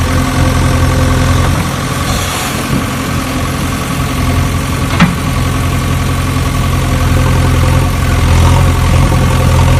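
Engine idling steadily with a low, even drone, and a single sharp knock about five seconds in.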